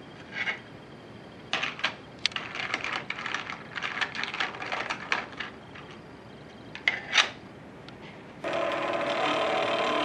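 Hard plastic clicking and rattling as the pieces of a 3D-printed thrust bearing are handled, its plastic balls rattling in the race and the lid set on it. Near the end a steady hum with several pitches starts suddenly as the NEMA 17 stepper-motor base is switched on.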